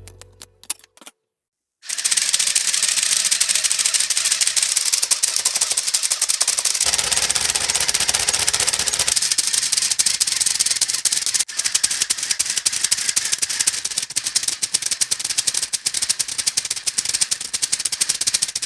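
Lego Technic V12 engine model running, its plastic pistons, crankshaft and gears making a fast, dense clatter that starts about two seconds in.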